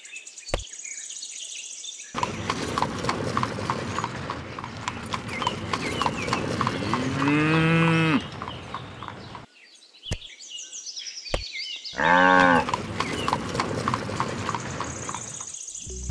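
Dubbed farm sound effects: hooves clip-clopping steadily for several seconds, with a long low cattle moo near the middle and a shorter call falling in pitch about three-quarters through. Birds chirp at the start and toward the end.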